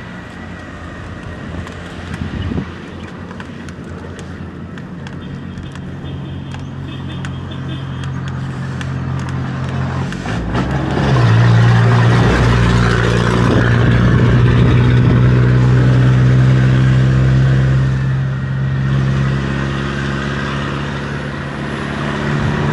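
A large engine running steadily, its hum growing much louder about halfway through and easing off slightly near the end.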